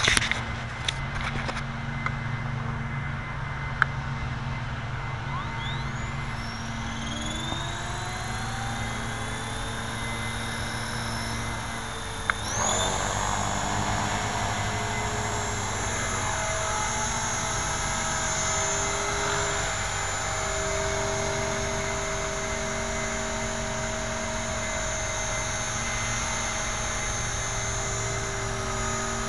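Blue Ray 450 radio-controlled helicopter's electric motor and rotor spooling up: a whine rising in pitch over several seconds, jumping up sharply about halfway through, then holding a steady high whine as the helicopter hovers.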